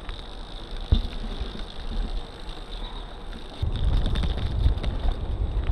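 Wind buffeting the microphone of a camera on a moving bicycle, with road rumble, a single knock about a second in and a few light rattles; the wind noise grows clearly louder about two-thirds of the way through.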